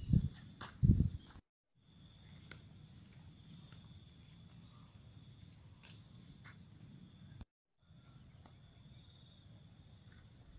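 Faint rural ambience of insects, crickets or cicadas, singing steadily in high thin tones, one pulsing in the last few seconds. There are two low thumps in the first second, and the sound cuts out completely twice for a moment.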